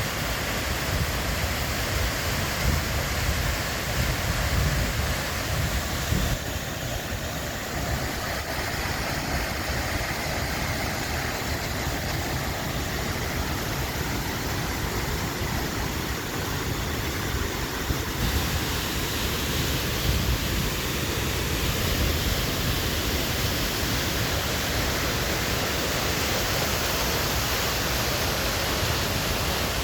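Waterfall: a steady rush of falling water, an even noise with no breaks.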